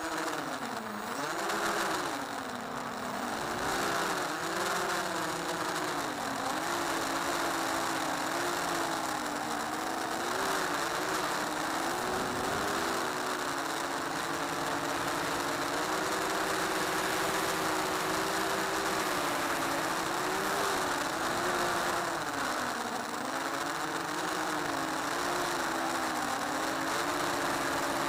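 Electric motors and propellers of a small camera-carrying RC aircraft in flight, heard from its onboard camera: a steady buzzing whine whose pitch rises and falls continually with the throttle, over a rushing noise.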